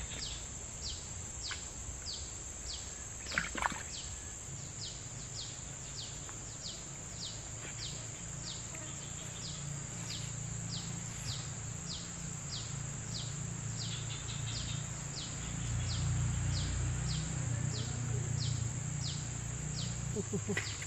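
Swamp-edge insect chorus: a steady high-pitched drone, with a short falling chirp repeated about three times every two seconds. A low rumble swells over the last few seconds.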